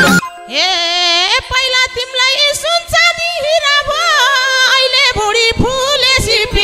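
Nepali dohori folk music. The madal and full band drop out, and a solo voice sings a long wordless phrase with vibrato and pitch slides over a held keyboard chord. Light taps sound underneath, and the full band comes back in at the end.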